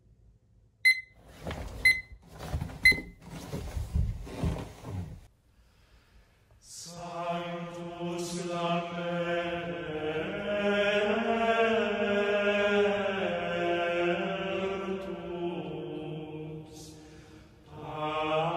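A digital alarm clock beeps three times, about a second apart, followed by a few seconds of rustling. About seven seconds in, a slow sung chant begins and carries on with long held notes.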